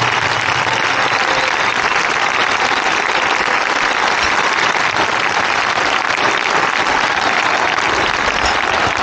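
A crowd of tens of thousands applauding steadily: a dense, even wash of clapping that neither builds nor dies away.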